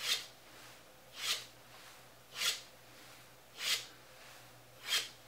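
Steel plane iron stroked on a leather strop charged with polishing compound: five light swishing strokes, about one every 1.2 seconds. This is the final stropping that polishes the honed edge.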